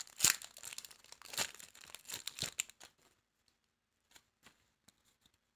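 Foil wrapper of a Pokémon Trading Card Game booster pack being torn open and crinkled for about three seconds, then a few faint clicks as the cards are handled.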